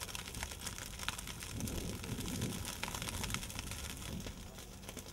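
Dry grass and brush burning, with scattered sharp crackles over a steady low rumble.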